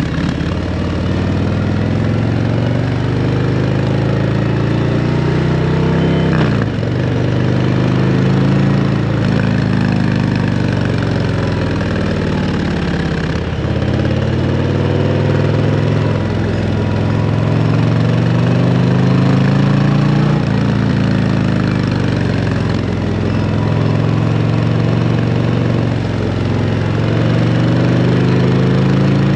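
Harley-Davidson CVO Road Glide ST's V-twin running through a Screaming Eagle exhaust while riding, loud and continuous. The engine note rises and falls in pitch over and over as the throttle is rolled on and off, with a sudden drop in pitch roughly every seven seconds.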